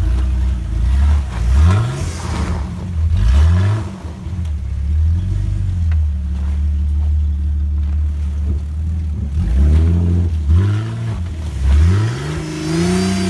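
Jeep Grand Cherokee WJ engine running low while crawling a rocky, rutted off-road trail. The driver blips the throttle in about five short bursts, each revving up and dropping back, the last one near the end the loudest.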